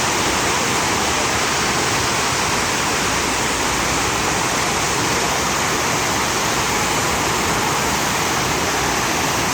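Steady rush of water from a FlowRider surf machine, a thin sheet of water pumped at high speed up and over its padded ride surface.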